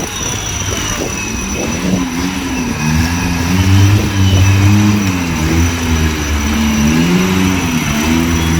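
Off-road 4x4's engine revving up and down repeatedly, getting louder about three seconds in.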